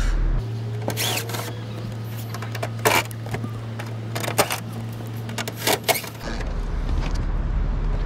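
Cordless drill backing out the screws that hold down an RV rooftop air conditioner shroud, with a steady motor hum and several sharp clicks and knocks of the tool and screws.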